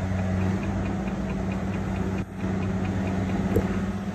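An engine idling steadily, with a faint regular ticking about five times a second. It is briefly muffled about two seconds in.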